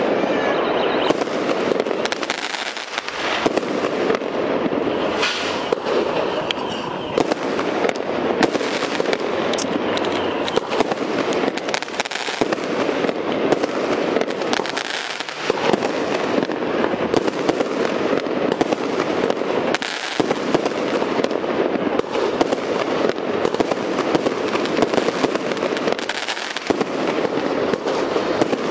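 Aerial fireworks display: shells bursting in a dense, continuous barrage of bangs and crackling, easing off briefly a few times.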